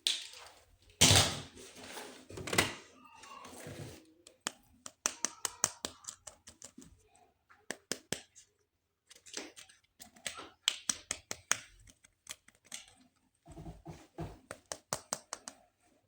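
Plastic toys and packaging being handled close to the microphone: rustling with two loud knocks in the first few seconds, then a long run of quick, light clicks and taps, some in rapid clusters, and a few duller thuds near the end.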